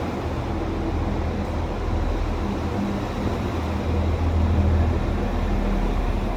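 Diesel engines of a CAF Class 195 diesel multiple unit running, a low steady hum that swells to its loudest about four and a half seconds in, then eases slightly.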